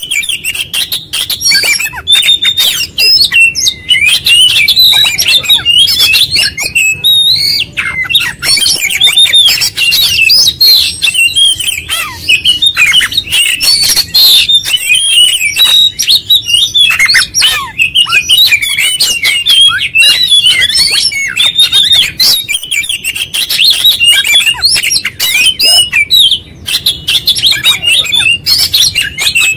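Oriental magpie-robin singing non-stop: a loud, fast torrent of varied whistles, trills and sharp clicks, running through its full repertoire of learned phrases.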